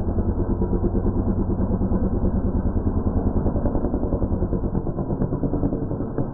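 Small gas engine of a 1/5-scale Primal RC monster truck running hard at steady high revs, with a rapid even pulsing, as the truck drives up a ramp and jumps; the engine note drops near the end.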